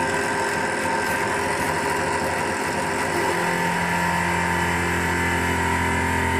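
Macpower Turn O' Mill 200 CNC turn-mill machine cutting a metal part with a driven milling tool: a steady machine hum and whine made of several tones, with a lower hum coming in about three seconds in.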